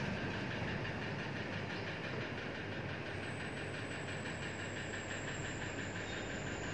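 Steady background noise of the room with no distinct events, and a faint thin high whine that comes in about three seconds in.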